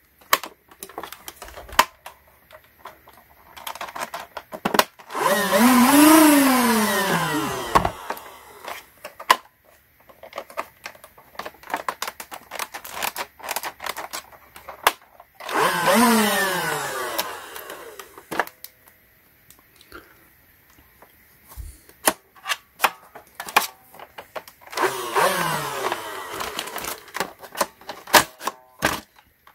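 The motor and rotors of a NERF Rival Perses MXIX-5000 motorized blaster whirring up and winding down three times as the trigger is pulled, each run falling in pitch over about two seconds, with sharp plastic clicks of the trigger and levers in between. The blaster is faulty: pulling the trigger gives a gear grinding noise, which the owner thinks may come from sand in the mechanism.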